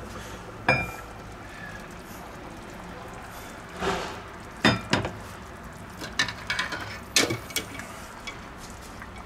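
Heavy enamelled pot lid lifted off its pot and set down on a glass-ceramic hob: a sharp clink with a short ring about a second in, two more clinks around the middle, and a run of lighter knocks and clinks toward the end.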